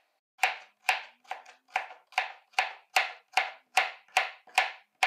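Kitchen knife chopping a cucumber into small pieces on a plastic cutting board: a steady run of about a dozen knocks, roughly two and a half a second.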